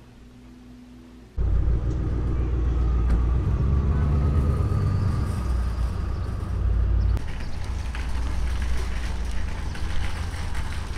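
Quiet room tone, then, about a second and a half in, a sudden switch to a loud, steady low rumble of outdoor parking-lot noise with vehicles.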